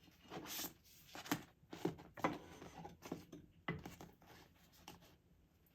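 Diamond painting canvas being handled and folded over a wooden stretcher frame: irregular rustling with a few light taps and clicks.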